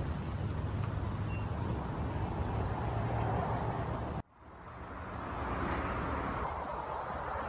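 Road traffic noise from cars on a busy road, a steady rumble. It cuts off abruptly about four seconds in, then steady outdoor noise with a high hiss fades back up.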